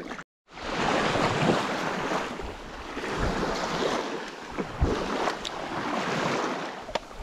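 Wind buffeting the microphone over small waves washing onto a pebble lake shore, with a couple of faint clicks near the end.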